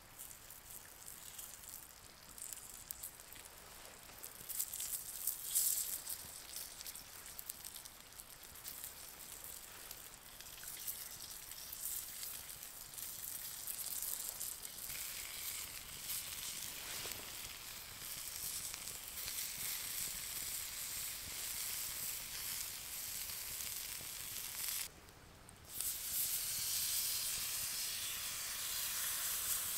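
Onion and bell pepper pieces sizzling on a hot flat stone over a campfire, with a few crackles early on from the fire. After a brief drop near the end, a louder sizzle as a raw steak is laid on the hot stone.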